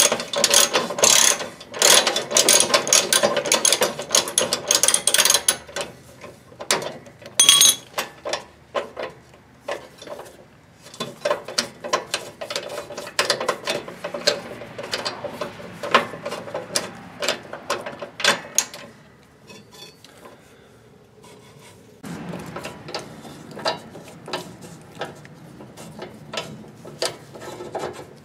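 Hand socket ratchet clicking in rapid runs as a nut is turned, with short pauses between strokes and a quieter stretch about two-thirds of the way through.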